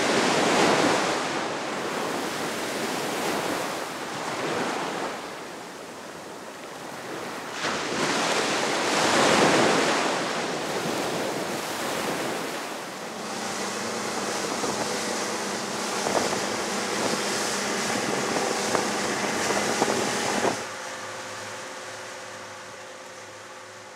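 Ocean surf: waves breaking and washing in, swelling loudest about a second in and again around nine seconds. Near the end the surf cuts off abruptly, leaving a quieter faint hum.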